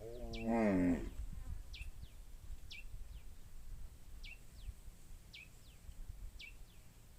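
A bird calls repeatedly outdoors: a short, sharply falling high chirp about once a second, often followed by a fainter second chirp. Near the start, a louder, deeper falling call lasts under a second, over a low rumble.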